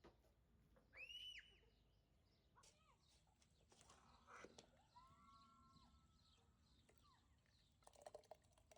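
Near silence with faint animal calls: a short call rising and falling about a second in, and a longer, lower one around five seconds in, with a few soft clicks.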